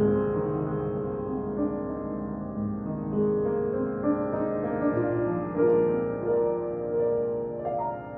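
Upright piano being played in a slow piece, long held notes and chords ringing into one another, with a new chord struck near the end.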